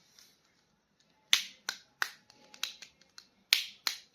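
Sharp clicks from hands handling a plastic toy action figure, about ten at uneven intervals starting a little over a second in.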